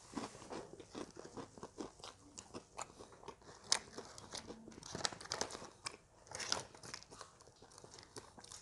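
Quiet, irregular crunching and crackling of crispy fried duck: a string of small sharp cracks, a few of them louder.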